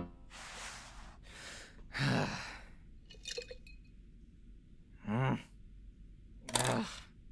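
A person's sigh and breathy exhales in the first couple of seconds, then two short hummed vocal sounds about five and six and a half seconds in, with faint light clicks between.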